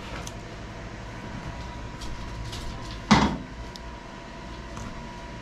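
Light clicks of kitchen tongs picking up fried fish fillets from ceramic plates, with one loud thump about three seconds in, over a faint steady hum.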